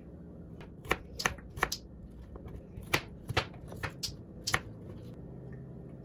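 Kitchen knife slicing cucumber and bell pepper on a plastic cutting board: about ten sharp taps of the blade on the board, uneven, in small clusters.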